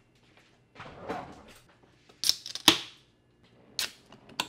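Dinner plates and aluminium beer cans set down on a wooden table, with cans being cracked open. There is a brief scrape about a second in, then several sharp clicks and knocks in the second half.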